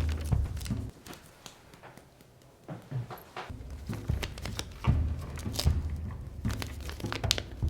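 Sheet of paper being torn slowly in half close to a lapel microphone: a string of soft rips and crinkles, with a lull of a couple of seconds about a second in.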